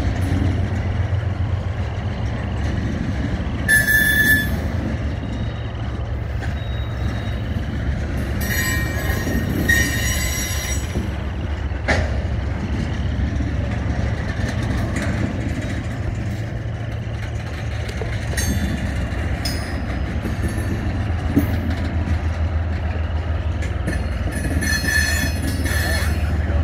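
Freight train tank cars rolling past with a steady low rumble, their wheels squealing high-pitched in several short bouts. The squeal comes from the wheels grinding through the turnout and curve into a siding.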